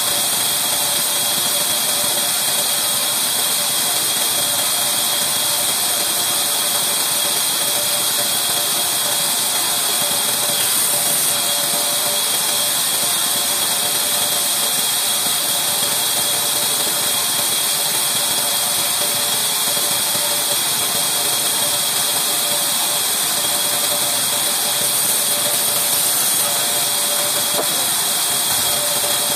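Large vertical band saw running steadily while a plank of reclaimed timber is fed through the blade and cut lengthwise.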